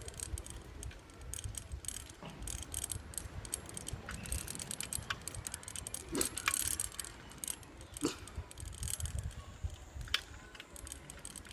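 A bicycle rattling as it rolls along a paved path, with scattered irregular clicks and ticks and a low rumble underneath.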